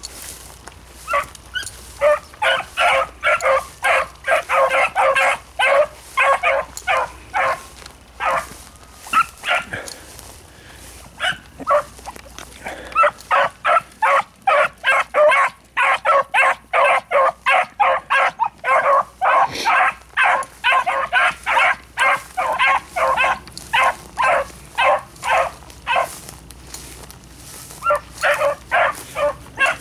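A small pack of beagles baying as they run a track, in long runs of short, quickly repeated barks, with a lull about ten seconds in.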